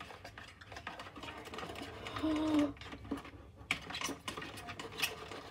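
Plastic spoon clicking, tapping and scraping in a small container of dish-soap slime as sugar is added and worked in: a run of quick, irregular clicks. A brief hummed tone sounds a little over two seconds in.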